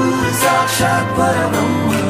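Background music track with a melody over a steady beat.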